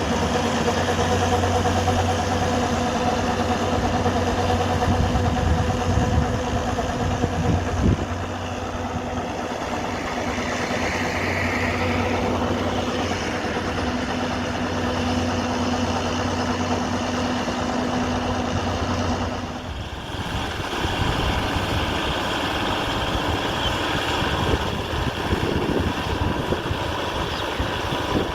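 Farm machinery engine running steadily. About twenty seconds in, the sound cuts to a different engine noise.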